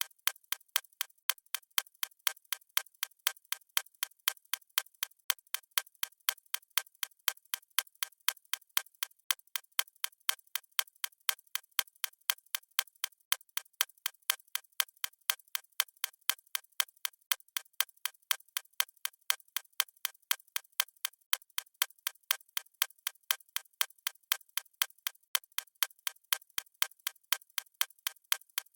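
Clock ticking sound effect: sharp, evenly spaced clicks, several a second, keeping a steady rate and level.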